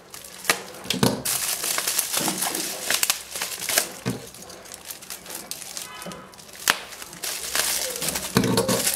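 Plastic bubble wrap crinkling and rustling in irregular bursts as it is handled and slit open with a pocket knife.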